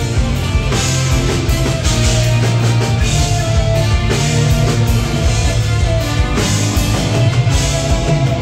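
Live rock band playing loudly: electric guitars, bass guitar and a drum kit with cymbal crashes.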